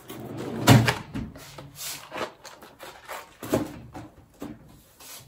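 Toiletries and small boxes being put away in a pull-out bathroom drawer: a sharp knock about a second in, then scattered lighter taps and rustling as items are set down.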